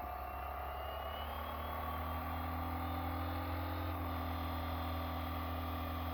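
Fly Wing FW450 electric RC helicopter spooling up: a steady motor whine and rotor hum rising slowly in pitch and level.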